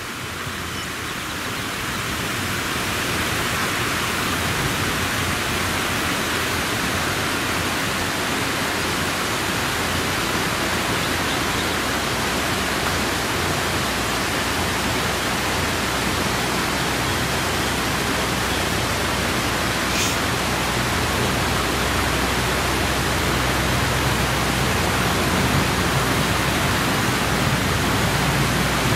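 Steady, even rushing noise that swells over the first few seconds and then holds.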